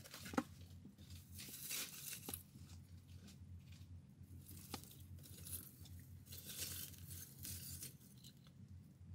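Dry grass and twigs rustling and crackling faintly as a small kindling fire is lit and fed by hand, with scattered sharp snaps.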